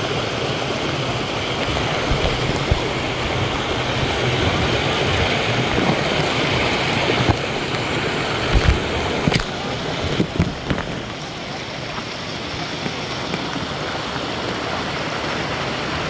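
Rushing water of a river cascade, a steady, loud rush, with a few brief knocks about halfway through.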